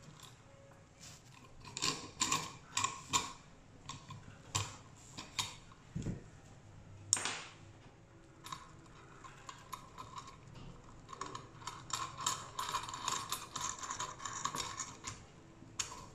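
Light metal clicks and rattles from a hacksaw frame and blade being handled and assembled, with a single low knock about six seconds in. This is followed by a run of quick clicking as the wing nut is threaded onto the blade-tensioning bolt.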